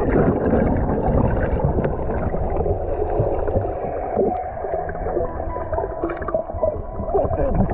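Muffled rushing and gurgling of water picked up by a camera held under water, with air bubbles moving past it. The sound is dense and low, easing a little about halfway through.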